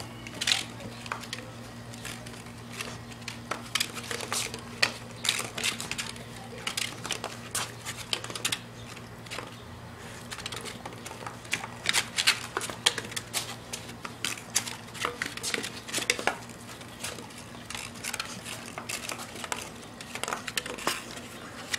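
Pit bull licking and eating nacho cheese from a plastic bowl: rapid, irregular wet smacks and licks, with the bowl now and then knocking.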